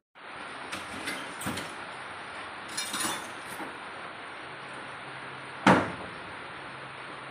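Knocks and clinks among charred debris and loose wooden boards, with one much louder knock a little before six seconds in, over a steady hiss.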